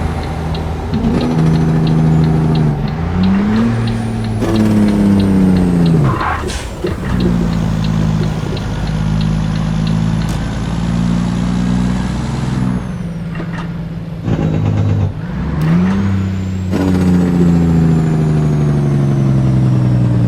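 Volvo FH truck's inline-six diesel on a straight-pipe exhaust, rumbling loudly, its revs rising and falling several times. There are long falling glides about four and seventeen seconds in, and a steadier stretch in between.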